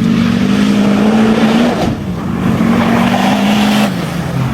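A loud engine held at high, steady revs, easing off about two seconds in, coming back up and held again, then dropping near the end.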